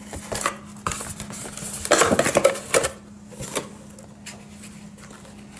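Cardboard and paper packaging of a webcam being handled: a string of taps, scrapes and rustles as the box and leaflets are moved, busiest and loudest about two seconds in.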